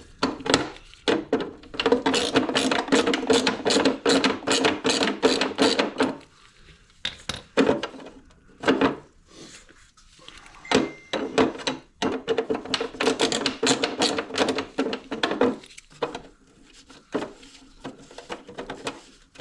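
A tool backing out a T30 Torx bolt on a snowmobile cover, clicking rapidly in two long runs with a steady low hum under them. Scattered single clicks and knocks fall between the runs.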